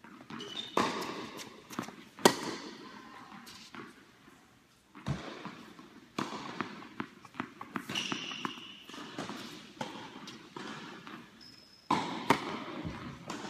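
Tennis balls bouncing and being struck by racquets, sharp separate knocks that echo in a large indoor tennis hall, with a few short shoe squeaks on the court. A serve is hit near the end.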